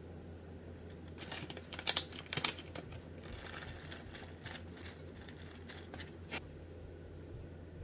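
Paper bag of sliced almonds crinkling and crackling as it is handled, loudest about two seconds in, then almond slices trickling and pattering into a steel pot in small scattered ticks.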